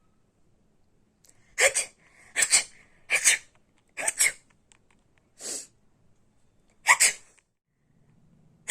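A run of about six short, sharp human sneezes in quick succession, roughly one a second, the fifth one softer, with another sneeze starting right at the end.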